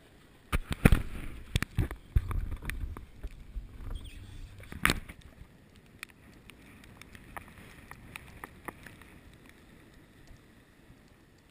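Snowboard riding over snow: a run of sharp knocks with a low rumble in the first few seconds, another sharp knock near the middle, then a quieter steady hiss.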